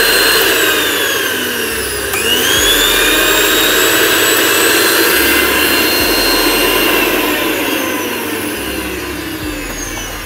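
Sujata mixer grinder's universal motor running on its new bearings, with no coupling or jar fitted: a steady high whine of several tones, which the repairer takes as the bearing noise now gone. About two seconds in the pitch dips and climbs back up, and it slowly falls in the last few seconds.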